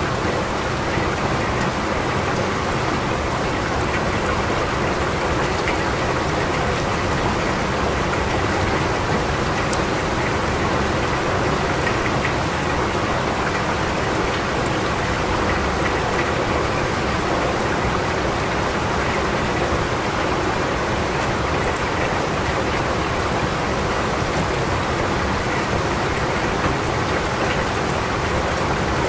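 Steady rain falling, an even hiss with the odd nearer drop ticking.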